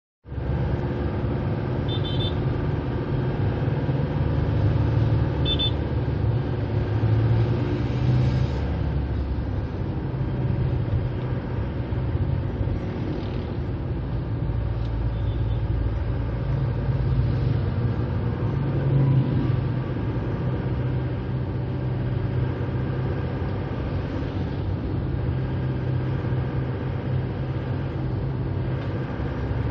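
A car's engine drone and road noise heard from inside the cabin while driving at a steady pace.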